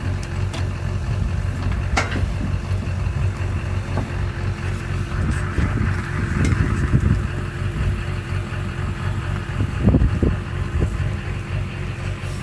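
An engine idling steadily with a low, even hum, with a few sharp clicks or knocks, about two seconds in and again near the ten-second mark.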